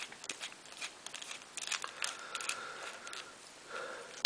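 Small clicks and scratchy scraping of a star-bit screwdriver working a tiny threaded wheel bolt off a toy tractor's motor shaft, and of the plastic wheel and motor unit being handled.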